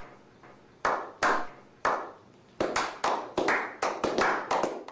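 A small group clapping in a slow clap that speeds up: single sharp claps spaced well apart at first, then faster and more ragged from about halfway through as the claps overlap.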